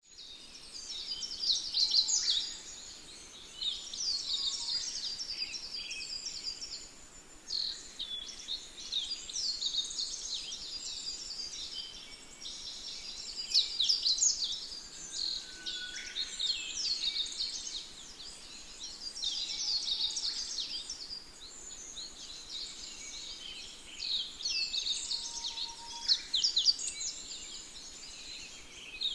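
Small birds chirping and twittering in repeated busy bursts of high, quick notes with sharp downward-sweeping calls.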